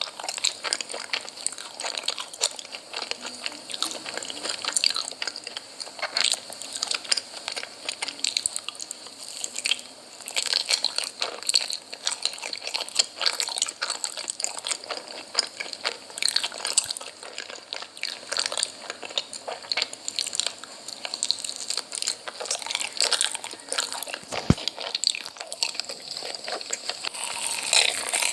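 Close-miked eating: crunchy bites and chewing, a dense run of crisp crackling clicks.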